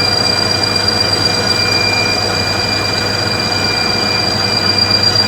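A machine running steadily, giving a continuous high-pitched whine over a low hum and a noisy rush.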